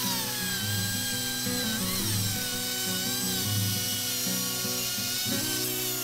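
Circular saw driving a Prazi beam-saw chainsaw attachment, running as it cuts along a log, a high whine that wavers in pitch under load. Background music plays underneath.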